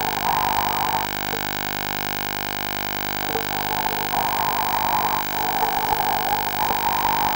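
Steady electronic hum and whine of a diver's wired communication line. Over it, rushes of noise lasting a second or two come and go, in the way a diver's breathing sounds through the helmet microphone, with a pause from about one second to three and a half seconds in.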